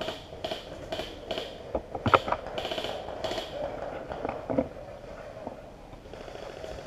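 Footsteps rustling through woodland undergrowth at walking pace, about two steps a second, stopping about three and a half seconds in. A single sharp snap sounds about two seconds in.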